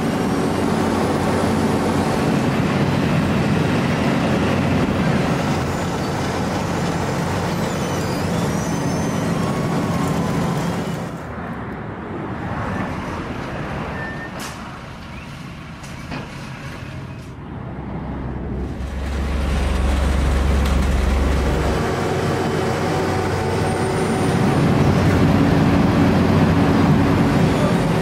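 Diesel engines of an asphalt paving train, a Vögele material feeder and paver with trucks alongside, running steadily under load. The sound drops for several seconds near the middle, then a deep low rumble swells before the full machinery noise returns.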